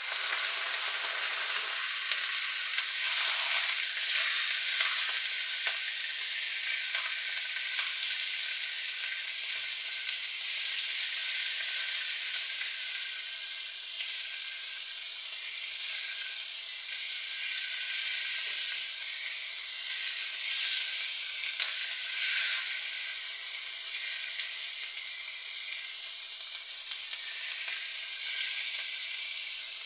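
Raw chicken pieces sizzling in hot oil with onion and garlic in a nonstick wok, a steady loud frying hiss. A plastic spatula stirs them, with a few short scraping clicks against the pan.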